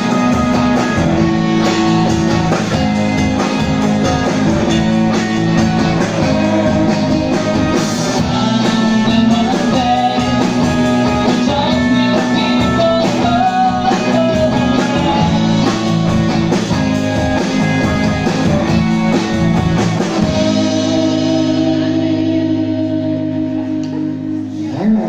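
Live rock band playing: electric bass, electric guitars and drums. About twenty seconds in the drum beat drops out and the band holds a sustained chord, which ends on a final hit and cuts off right at the end as the song finishes.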